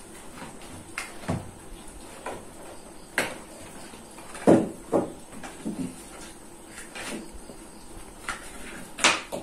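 Irregular knocks and clicks of a laptop charger and its small cardboard box being handled and unpacked, with the loudest knocks about halfway through and just before the end.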